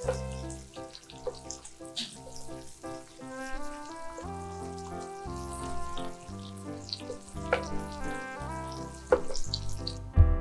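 Sliced mushrooms and onion sizzling as they fry in butter in a pan, with occasional knocks of a wooden spatula as they are stirred. Background music with a steady bass plays over it, and there is a thump near the end.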